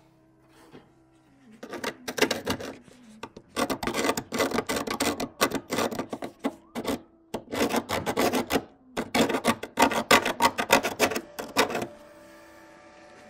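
Hand scraping or wire-brushing rusty metal in rapid back-and-forth strokes, in several bouts with short pauses between them.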